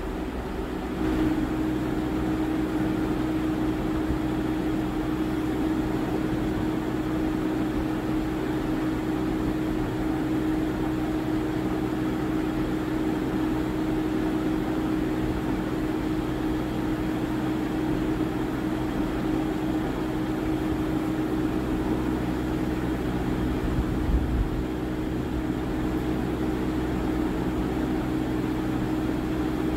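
Steady machine hum with a constant droning tone, setting in about a second in and holding evenly throughout.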